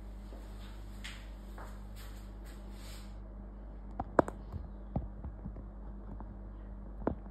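A few sharp knocks and clicks, the loudest cluster about four seconds in and another near the end, over a steady low hum, with soft rustling before them.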